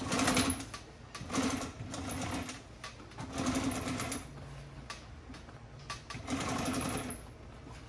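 Industrial walking-foot sewing machine running a top stitch through a vinyl seat cover, in four short runs of rapid stitching with brief stops between them.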